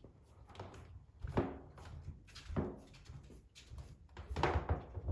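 Pet rabbit sneezing, a run of short sneezes with three louder ones about a second and a half in, near the middle and near the end: a bad sneezing attack.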